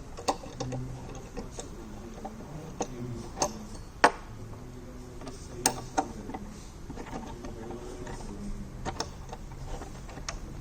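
Irregular sharp metal clicks and light knocks of an Allen key working bolts into a wooden table leg as it is fastened to the tabletop, the loudest click about four seconds in.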